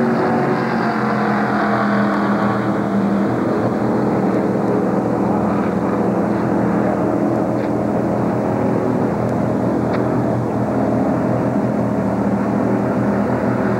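Several NASCAR-style stock cars running at speed, their V8 engines a loud, steady drone with the pitch drifting as the cars come by.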